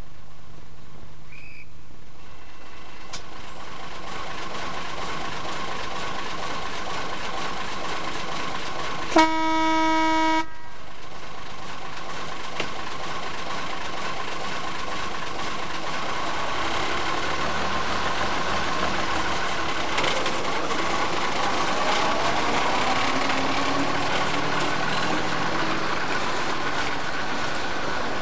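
Small narrow-gauge diesel locomotive running at the platform, giving one short horn toot of about a second, about nine seconds in. From about halfway through its engine note grows louder as the train pulls away with its coaches.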